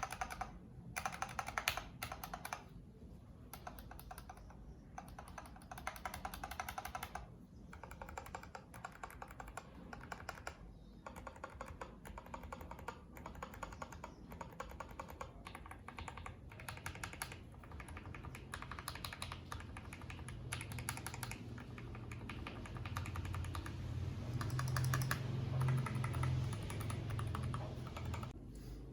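Typing test on a mechanical keyboard fitted with ABS double-shot keycaps: runs of key presses in bursts with short pauses, a fairly quiet sound. A low hum grows louder over the last several seconds.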